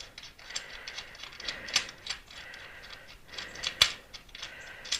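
Metal stops from a welding fit-up kit clicking and clinking as they are fitted into the holes of a modular welding table. There is a run of small irregular clicks and one sharper metal knock about three-quarters of the way through.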